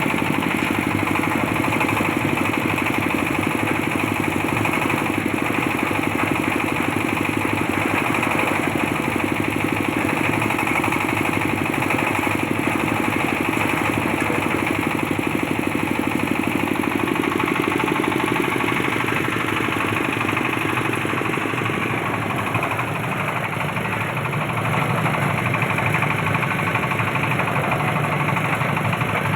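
Engine-driven oil palm fruit threshing machine (brondol machine) running steadily.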